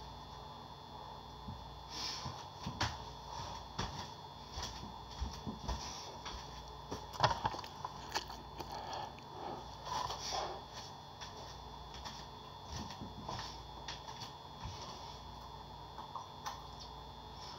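A person eating a sausage muffin: biting and chewing, with irregular clicks, knocks and rustles of movement. The loudest is a sharp knock about seven seconds in. A faint steady high tone sits underneath.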